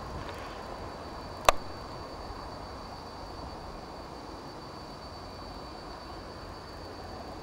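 Diesel railcars running at a distance: a steady low noise with a faint, steady high whine, broken by one sharp click about a second and a half in.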